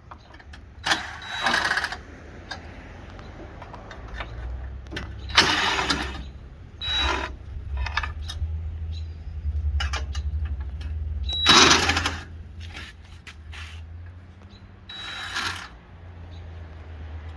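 Mechanical work noises: about five short rasping bursts, each under a second, with scattered clicks over a low steady hum.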